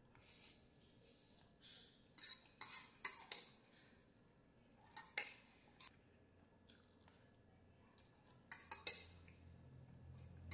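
A metal fork clinking and scraping against an enamel bowl in a few short clusters, about two seconds in, around five seconds and near nine seconds, with quiet between.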